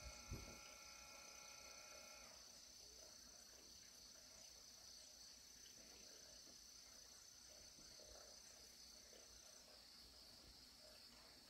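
Near silence: faint outdoor ambience with a steady high-pitched insect drone. A soft low thump comes just after the start, and a faint steady hum stops about two seconds in.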